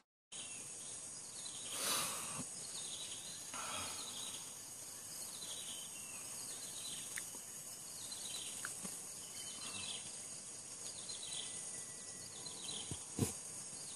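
Outdoor ambience: a steady high-pitched insect drone with scattered short bird chirps, a soft rush about two seconds in and a brief knock near the end.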